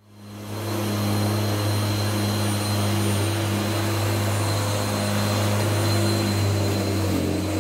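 Sterwins corded electric lawn mower starting up and running steadily as it is pushed over grass: a low motor hum with a thin high whine, dipping slightly in pitch near the end.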